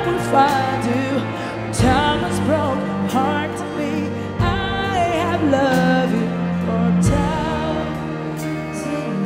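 Live ensemble of strings, saxophone, trumpets and keyboard playing a slow ballad, with a sung melody on top. Sustained chords are marked by a low beat about every two and a half seconds.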